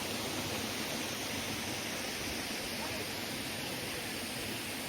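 Steady, even rush of water pouring down a waterfall.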